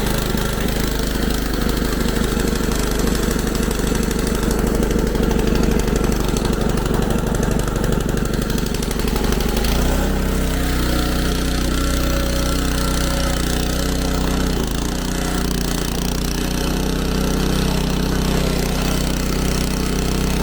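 Gas snowblower engine running steadily while clearing snow, heard from a camera inside a pocket; its note shifts about halfway through.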